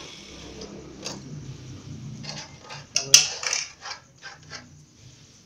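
Hard plastic motorcycle fender pieces being handled and bent by hand: a run of clicks, creaks and scrapes, with the sharpest crack about three seconds in.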